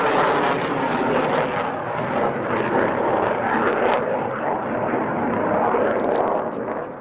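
F-16 fighter jet in flight: steady, loud jet-engine noise that eases off a little near the end.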